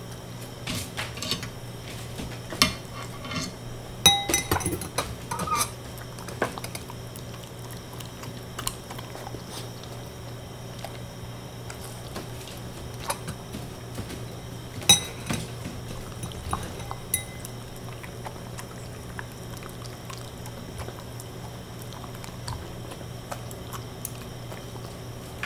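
Scattered sharp clinks and knocks of dishware, some ringing briefly, bunched in the first six seconds and again about fifteen seconds in, over a steady low hum.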